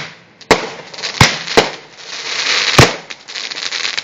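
Fireworks going off: four sharp bangs in under three seconds, with crackling between them.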